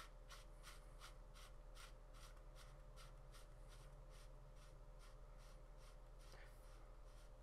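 Faint, regular scratchy clicks, about three a second, as the threaded end cap of a CO2 air rifle's gas tube is screwed back on by hand.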